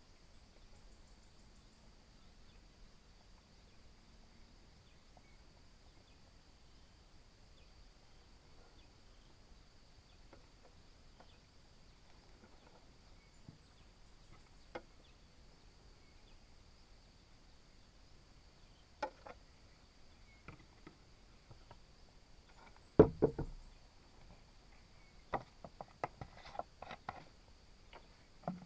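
Scattered knocks and clatters from objects being handled and set down. Most are light, with one heavier knock about two thirds of the way in and a quick run of knocks near the end, over a faint steady high-pitched drone.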